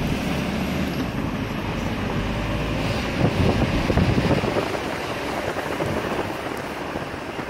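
Road noise from a car driving through city traffic, with wind rushing over the microphone. It swells for a second or so about three seconds in, then eases off.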